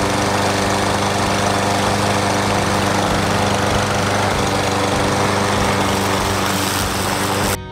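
Troy-Bilt gas walk-behind lawn mower engine running steadily, with a constant pitch. It cuts off suddenly near the end.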